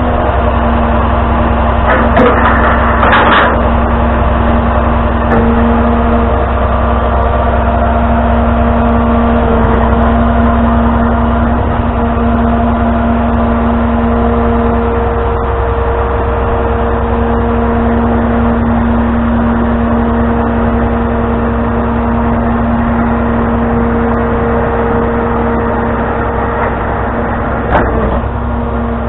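Tow truck's engine running steadily, with a constant low rumble and an even hum. Brief knocks come a few seconds in and again near the end.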